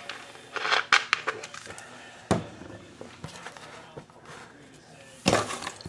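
Hands handling a sealed box of trading cards: scattered taps and knocks, with a louder rustle near the end.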